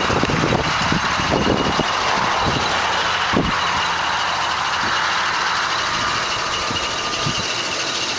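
Wind buffeting the microphone in irregular gusts over a steady rushing hum of distant highway traffic.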